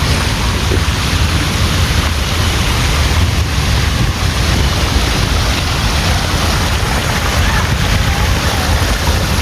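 Steady rush of water falling from a man-made waterfall, with wind buffeting the microphone.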